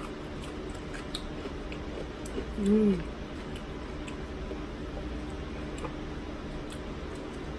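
Quiet chewing and small wet mouth clicks from someone eating sushi, over a steady low background hum. About three seconds in comes one short hummed "mm" that rises and falls in pitch.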